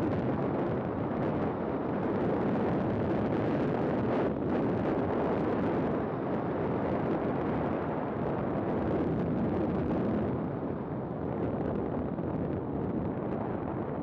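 Wind buffeting the microphone and a steady rumble as a flex-wing microlight trike rolls along a tarmac runway after touchdown. The noise eases after about ten seconds as the trike slows.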